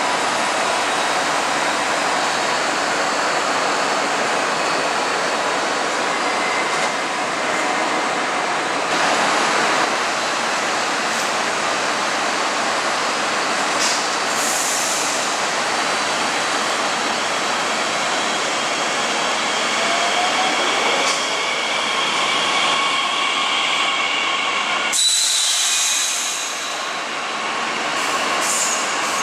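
DB Class 442 Talent 2 electric multiple unit moving along a platform under a large station train shed: a steady rush of train and station noise with thin, steady electric whines. There is a sudden change in the sound near the end.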